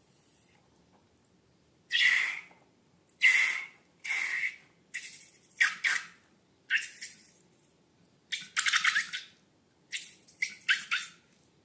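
Slime being squeezed and worked by hand: a run of about ten short, crackly squelches and squeaks with brief pauses between them.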